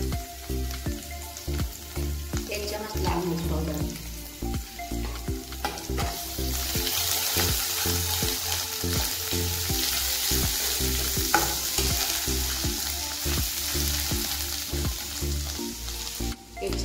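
Ginger-garlic paste and ground spices sizzling in hot oil in a nonstick pan while a spatula stirs them. The sizzle grows louder about six seconds in.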